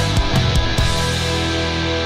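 Hard rock song with drums and distorted electric guitar. The drum hits stop about a second in, leaving a held guitar chord ringing on.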